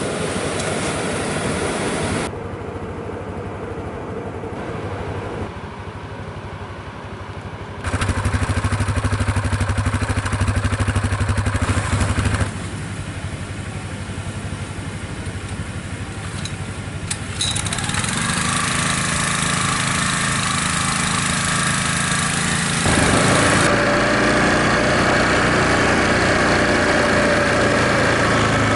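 An engine running steadily, with a low hum. Its level and tone change abruptly every few seconds, like cuts between separate clips of engine running.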